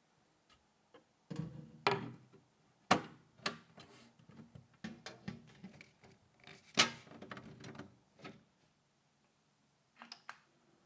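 Hard plastic and metal PC case parts being handled and fitted together: a run of irregular clicks, knocks and rattles, with the sharpest knocks about three seconds in and again about seven seconds in, then a couple of small clicks near the end.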